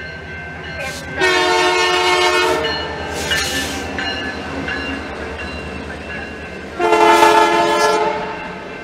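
Air horn of CP GP20C-ECO locomotive 2323 sounding two long blasts about five seconds apart as it passes through a grade crossing, a crossing warning. Under the blasts runs the steady low rumble of the locomotive's Caterpillar diesel engine as it goes by close up.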